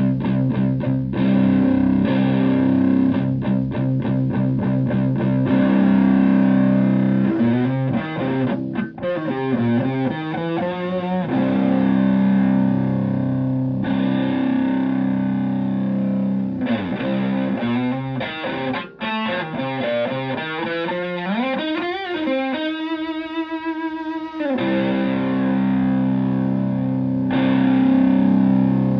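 Stratocaster electric guitar played through an EarthQuaker Devices Hoof-style fuzz pedal and a Twin Reverb-type amp: thick distorted sustained chords. In two stretches, one near the start and a longer one in the middle, the notes waver and bend in pitch.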